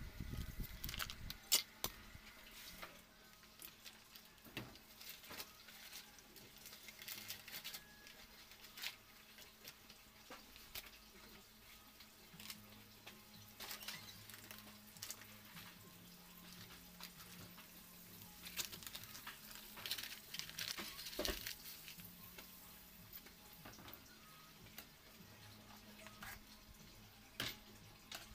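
Butter melting in a hot wok, with faint scattered crackles and spatters and occasional clicks of a metal spoon against the pan.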